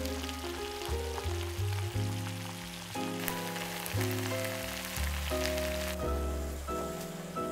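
Chicken simmering in tomato sauce in a frying pan, a steady sizzle under background music with a melody and bass line. The sizzle drops away about six seconds in, leaving the music.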